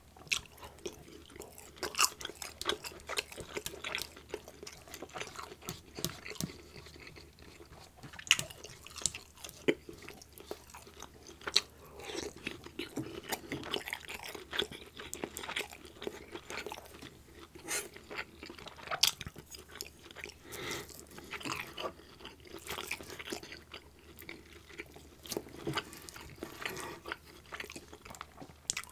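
Close-miked chewing of soft Swedish meatballs in gravy: wet mouth smacks and many sharp, irregular clicks, with a metal fork working the meatballs on a plastic-wrapped cutting board.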